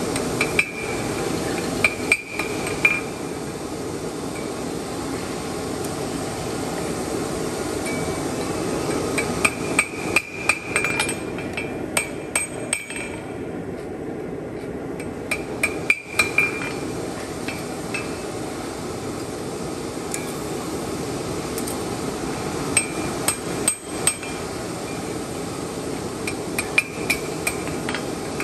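Hand hammer striking steel on an anvil in short runs of blows separated by pauses of several seconds, each run with a bright ringing tone. A steady rushing noise runs underneath.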